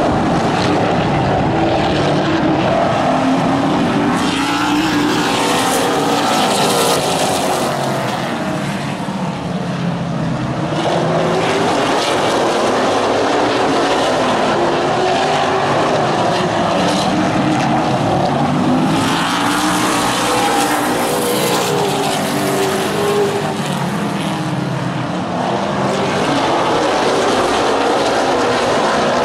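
Super late model stock cars racing on a short oval, several V8 engines running together, their pitch rising and falling as the cars pass and work through the turns.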